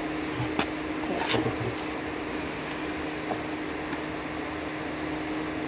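A steady machine hum with a constant tone throughout, with a few light clicks of handling as rubber bands are put around a cheesecloth-wrapped filter cartridge.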